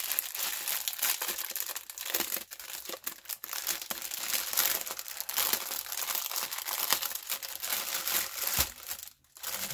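Clear plastic bag of diamond-painting drills crinkling and crackling as it is handled and worked open. The sound stops briefly near the end.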